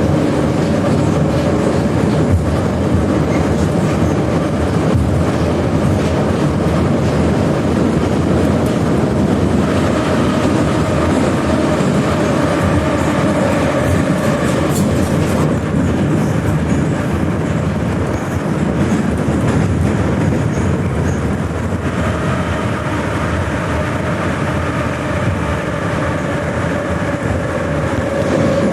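81-717/714 "Nomernoy" metro train running at speed: a steady rumble of wheels and running gear with a steady whine and clicks from rail joints, a little quieter in the last third.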